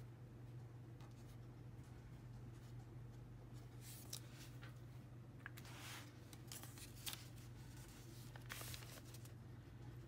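Faint paper handling: an open journal shifted on the desk and a torn notebook-paper strip rustling as it is laid across the page, in a few short bursts over a low steady hum.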